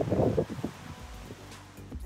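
Wind buffeting the microphone for about the first second. Background music comes in during the second half.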